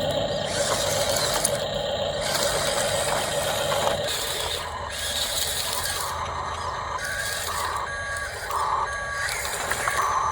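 A radio-controlled excavator model's electric drive whines steadily. About four seconds in, a series of electronic beeps starts, like a machine's reversing alarm.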